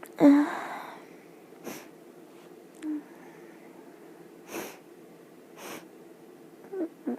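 A person sneezes once, loudly, about a quarter second in, the sneeze trailing off over most of a second. Four short sniffs follow, spaced over the next few seconds, and two brief catches of the voice come near the end.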